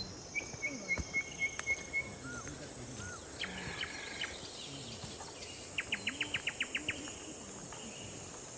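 Forest birds calling: a run of short repeated chirps, then a few scattered calls, and about six seconds in a quick trill of about nine notes. Under them runs a steady high insect drone.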